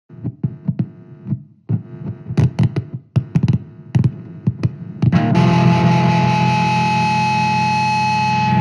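Hardcore punk song intro on heavily distorted electric guitar: short, separate stabbing hits, then about five seconds in the full band comes in with a loud, sustained distorted chord.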